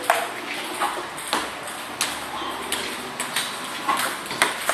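Table tennis balls clicking in a quick, even rhythm, bouncing on the table and struck by paddles, a hit about every two-thirds of a second.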